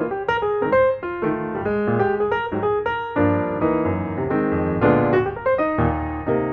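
Background piano music: a quick melody of struck notes over chords.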